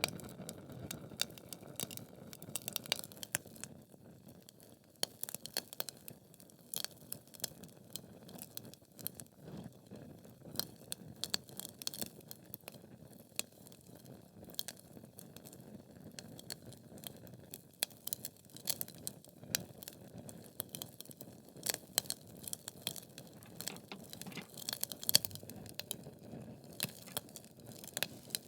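Wood fire burning in a fireplace: logs crackling and popping in irregular sharp snaps over a soft low rush of the flames, with a louder pop near the end.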